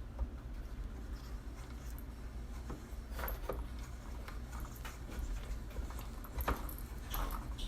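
Lyman case trimmer and a brass rifle case being handled: a few scattered light clicks and knocks over a low steady hum.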